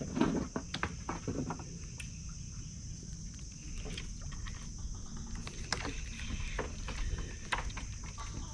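Steady high-pitched insect drone over a low rumble of wind and water, with scattered small clicks and knocks from a spinning rod and reel being handled.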